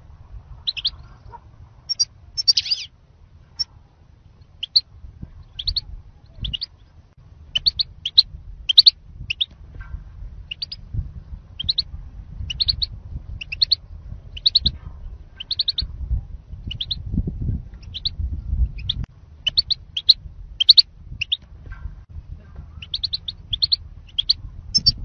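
European goldfinch calling: short, high chirps, mostly in quick clusters of two to four, repeated about once or twice a second over a low rumble.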